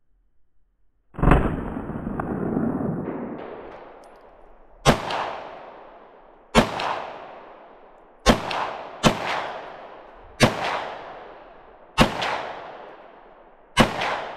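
Eight shots from a Smith & Wesson SD9VE 9mm semi-automatic pistol, fired one at a time at uneven intervals of one to three and a half seconds, each followed by an echo that fades over a second or so.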